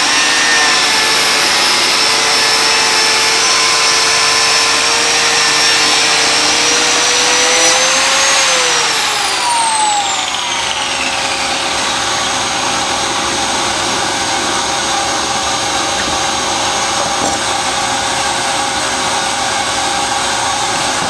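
Einhell TC-BJ 900 biscuit joiner running while it cuts a groove along a wooden board, with a shop vacuum drawing dust from it through a hose. About eight seconds in, the joiner's pitch rises a little, then falls as it is switched off and spins down, leaving the vacuum running steadily.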